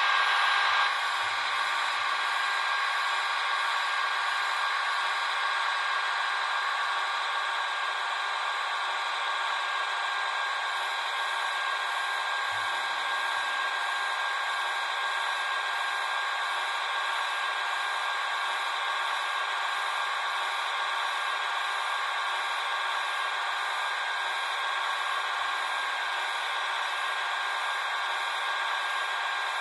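H0-scale Roco EDK 750 model railway crane running with a steady whirring hum that carries a thin steady tone; it drops a little in level about a second in and then holds even.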